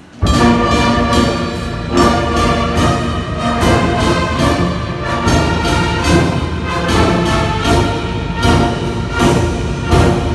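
A church brass band strikes up with a sudden, loud full entry about a quarter second in. Brass instruments play a melody together over a regular beat of about two to three strokes a second.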